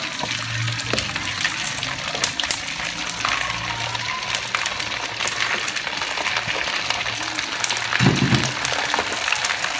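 Pork skin deep-frying in hot oil in a wok: a steady sizzle with scattered pops and crackles, and a slotted metal ladle stirring and clinking against the wok. A brief low thud comes about eight seconds in.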